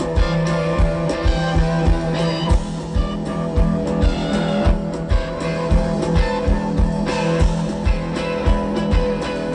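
Live rock band amplified over a PA: electric guitars over a held low bass note and a steady low beat of about two to three strokes a second.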